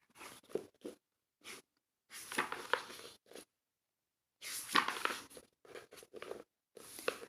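Paper pages of a picture book rustling and crinkling as they are handled and turned, in several short bursts with pauses between.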